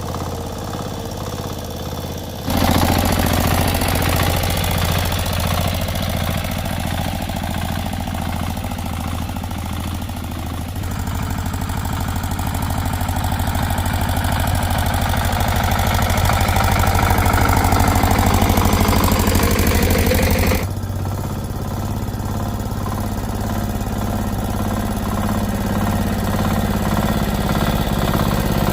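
A small engine running steadily. About two and a half seconds in it becomes much louder with a hissing rush, and it drops back to the steadier running a few seconds before the end.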